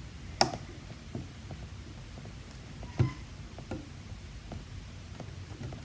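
Metal lock pick clicking against the pins and warding inside a Yale-based pin tumbler lock as it is picked: a sharp click about half a second in, another about three seconds in, and fainter ticks between.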